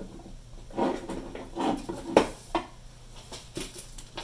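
Small metal shoulder screws and a screwdriver clicking and clinking as the screws are handled and fitted: a few irregular light clicks and rattles, the sharpest about two seconds in.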